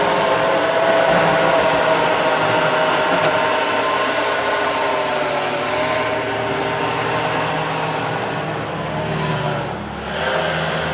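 Bobcat skid steer's engine running steadily as it plows the driveway, its pitch wavering slightly, with a short drop in level near the end.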